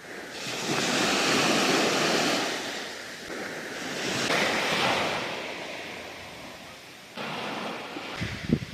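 Sea waves washing onto the shore, two surges swelling and fading away. Near the end, low gusts of wind buffet the microphone.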